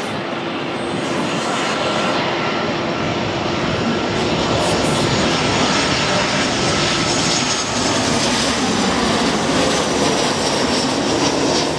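Twin jet engines of a Boeing 737 airliner on landing approach passing low overhead: a steady rushing jet noise with humming tones that grows louder after about two seconds. In the second half a high whine drops in pitch as the aircraft goes by.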